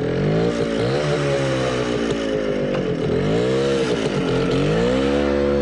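Motorcycle engine pulling away under load, its pitch rising and falling several times as the rider opens and eases the throttle.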